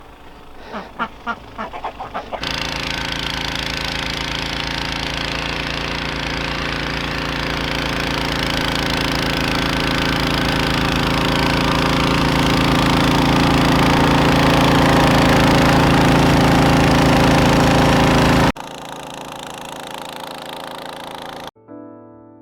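Ducks quacking for about two seconds, then a loud, steady mechanical drone made of several held tones that slowly grows louder and cuts off suddenly near the end.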